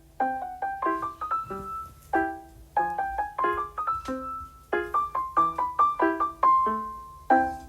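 Background music: a light melody of quick plucked- or piano-like notes, several a second.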